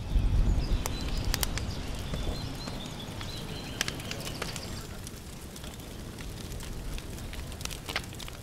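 Open-air wooden funeral pyre burning: a steady low rumble with scattered sharp crackles, while birds chirp faintly.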